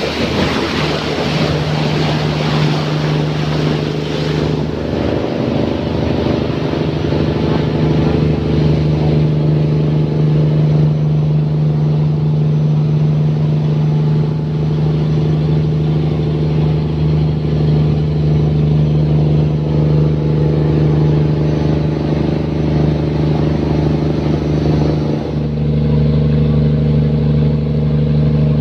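A fishing boat's engine running steadily with a constant hum, with a rush of water noise over it in the first few seconds. Near the end the engine note changes and becomes heavier.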